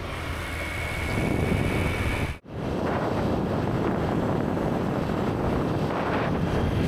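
Wind rushing over the microphone of a moving moped, with engine and road noise underneath. The sound cuts out for an instant about two and a half seconds in.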